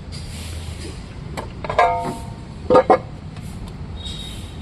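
Metal clinks and knocks, a few of them ringing briefly, as of tools striking car parts during repair work, over a steady low hum. The loudest are a double knock about three seconds in.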